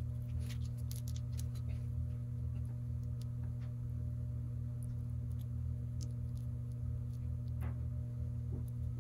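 A steady low hum with faint, scattered soft clicks and smacks of greasy fingers working grease into a tapered roller wheel bearing by hand.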